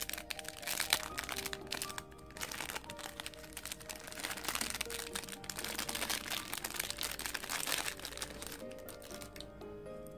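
Small clear plastic wrapper crinkling as it is twisted open by hand, stopping near the end, over soft background music.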